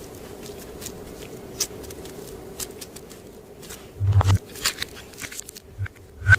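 Hands working clear slime: scattered small clicks and crackles, a louder squishy crackle about four seconds in and a sharp pop just before the end, over a steady background hum.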